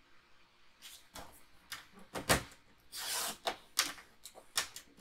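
Sharp clicks and knocks of cardstock being handled on a paper trimmer, the loudest a little over two seconds in, with a half-second scraping slide about three seconds in as the trimmer's blade cuts through the card.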